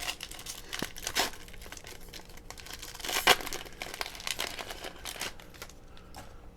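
Foil trading-card pack wrapper crinkling and tearing as it is ripped open, in a series of crackles with the loudest rip about three seconds in.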